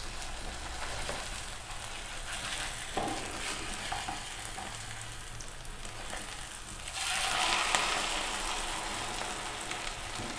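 Egg omelette frying in hot oil in a non-stick pan: a steady sizzle with a few light spatula scrapes. About seven seconds in, the sizzle swells louder for a second or so as the omelette is flipped onto its uncooked side.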